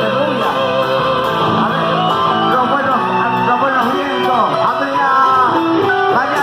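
Loud live cuarteto band music playing without a break.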